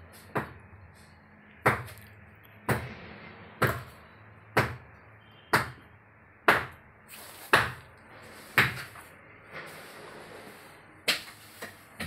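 Hammer strikes at a steady pace of about one blow a second, each a sharp crack with a short ring. After a pause of about two seconds they resume with two quicker blows near the end.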